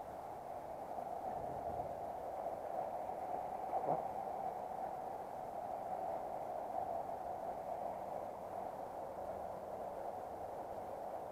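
Steady rush of a shallow river running over stones, with one brief thump about four seconds in.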